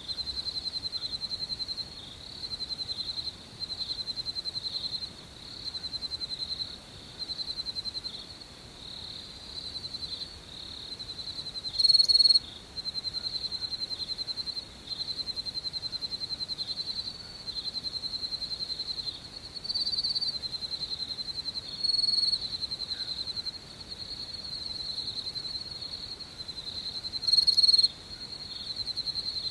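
Crickets chirping: a high-pitched, finely pulsed trill that comes in runs of a second or two with short breaks, and four louder chirps standing out over it.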